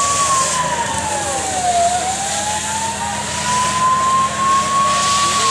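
Fire engine siren wailing: a single tone falls, climbs slowly back over about three seconds, and starts falling again near the end, over a steady rush of noise.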